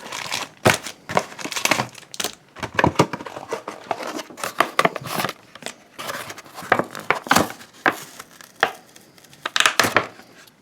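Plastic blister pack with its cardboard backing being torn open by hand: irregular crinkling and tearing crackles, thinning out near the end.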